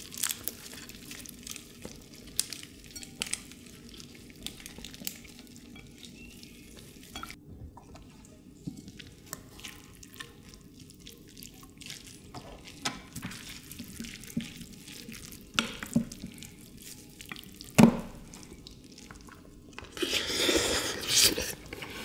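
Wet squishing and small clicks of soy sauce-marinated raw crab (ganjang gejang) being pulled apart and mixed into rice with gloved hands and a spoon. A sharp knock comes about 18 seconds in, and a noisier stretch of about a second and a half near the end.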